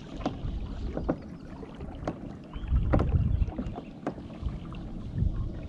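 Wind buffeting the microphone over water lapping at a kayak's hull, with scattered light clicks and knocks.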